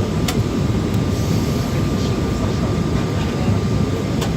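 Cabin noise inside a Boeing 737-800: the steady, dense rumble of the engines and airflow, with two sharp clicks, one near the start and one near the end.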